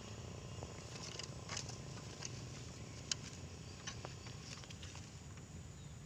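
Quiet outdoor background with a low steady hum and a few faint, scattered clicks.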